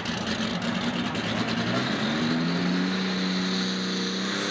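Super Stock pulling tractor's engine running hard under load as it drags the weight sled. The engine note steps down in pitch about two seconds in and then holds steady.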